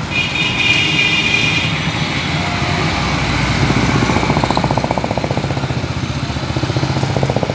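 Motorcycles passing close by on a city road, their engines running as they go past, over steady traffic noise. A vehicle horn sounds a steady high tone for about a second and a half near the start.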